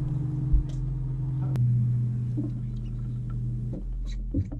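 Electric trolling motor on a bass boat humming steadily; its pitch steps up with a click about one and a half seconds in, and the hum drops away near the end. A low thump comes about half a second in.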